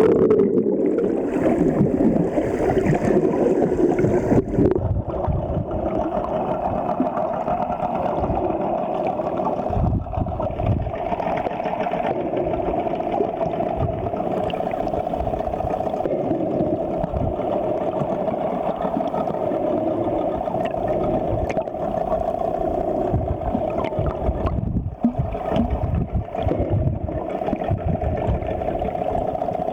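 Motorboat's outboard engine running at a steady speed, with the rush of wind and water around the hull.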